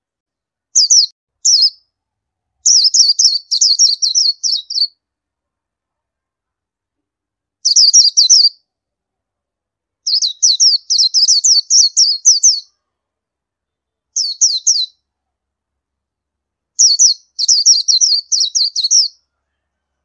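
Oriental white-eye calling: seven bursts of rapid, high twittering notes, each a quick run of short downward-slurred chips, the longest runs lasting two to two and a half seconds, with pauses of one to three seconds between.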